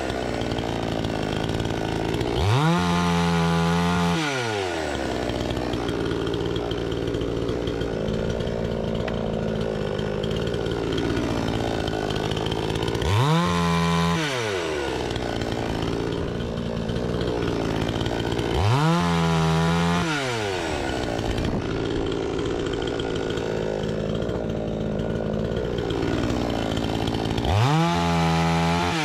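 Petrol chainsaw running near full throttle while cutting fruit-wood logs. Its engine note sweeps up and back down four times, each sweep reaching the loudest, highest pitch, with rougher, steadier running between the sweeps.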